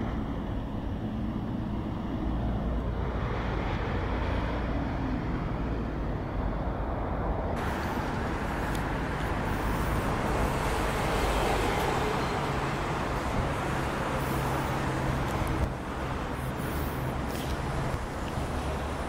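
Steady city road traffic noise: car and bus engines running, with a low hum underneath. The sound turns hissier and brighter about seven seconds in.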